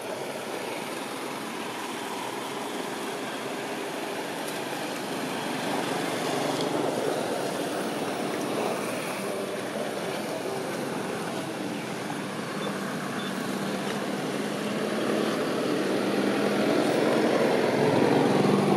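Motor traffic running steadily in the background, with an engine hum growing louder over the last few seconds as a vehicle draws nearer.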